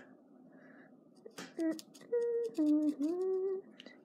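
A person humming a short tune of a few held notes, the last one sliding up, starting about a second and a half in and stopping shortly before the end. Faint light ticks and scrapes of a paintbrush stirring acrylic paint on a paper plate.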